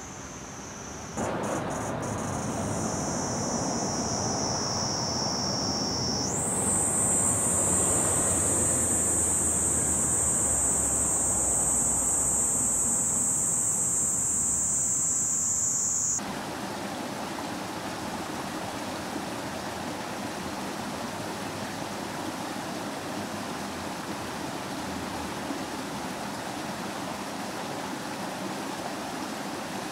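Cicadas droning, a steady high-pitched buzz over a background hiss, jumping higher and louder about six seconds in. It cuts off suddenly at about sixteen seconds, and a steady rush of water at a wooden water wheel and its stream takes over.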